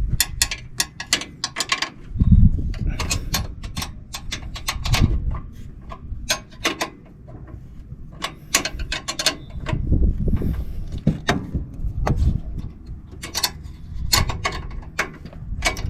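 A wrench clicking in quick runs of sharp metal clicks as the coilover top plate nuts are tightened by hand, with low handling knocks and rumbles between runs.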